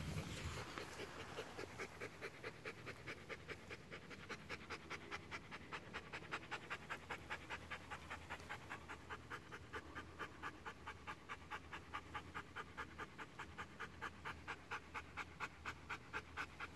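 Bernese Mountain dog panting, a fast, even rhythm of about four to five breaths a second.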